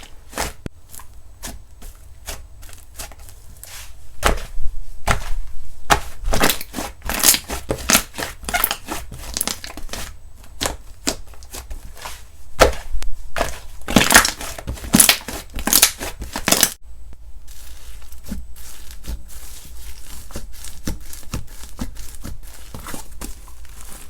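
Slime being squeezed and worked by hand, giving a string of sharp clicks and pops. About seventeen seconds in it changes abruptly to a denser, even run of small crackles.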